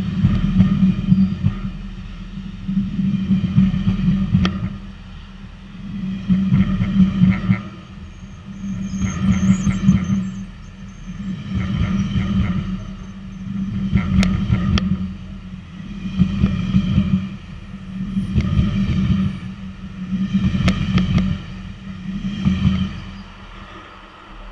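GO Transit bilevel passenger coaches rolling past at close range, their wheels rumbling and clattering in a swell each time a car's trucks go by, about every two to three seconds. The swells come a little closer together as the departing train gathers speed, and the clatter fades once the last car has passed, near the end.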